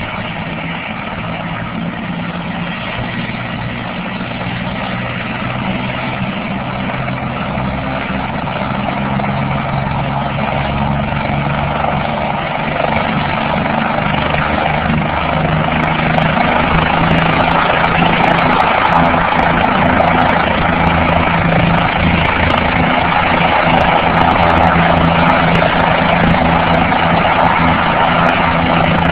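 Medical helicopter's engine and rotor running, growing steadily louder as it powers up for takeoff.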